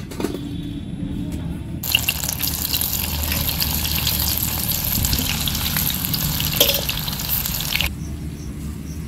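Arbi-leaf pakoras in besan batter deep-frying in hot refined oil in a metal kadai: a dense sizzle full of crackles that starts about two seconds in and stops suddenly about a second before the end.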